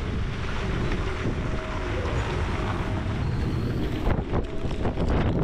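Strong wind blowing across the microphone on a sailboat's deck: a steady rushing noise with a heavy low rumble.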